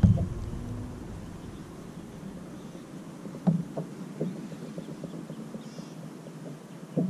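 Soft knocks and handling noise from a baitcasting rod and reel being worked in a kayak, over a faint steady low hum; a short thump right at the start, then a few soft knocks spread through the rest.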